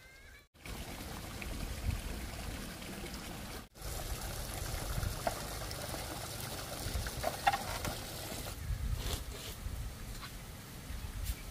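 Water pouring steadily from a bamboo pipe into a plastic bucket. Near the end the sound changes to a few light clicks and knocks.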